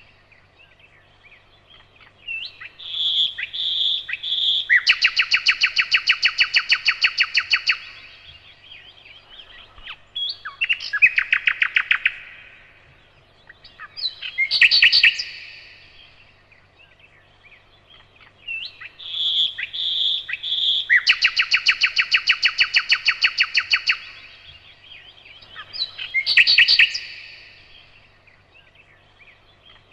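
Nightingale singing: phrases a few seconds long separated by short pauses, several of them long, fast runs of rapidly repeated notes, others short clear whistles and trills. A faint steady low hum sits beneath the song.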